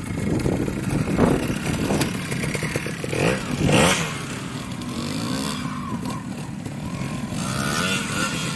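Classic trials motorcycle engine running and revving, with short blips of the throttle that rise and fall, the loudest about four seconds in.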